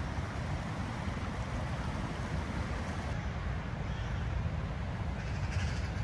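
Steady rushing of a river in spate, with wind buffeting the microphone. A brief bird call sounds near the end.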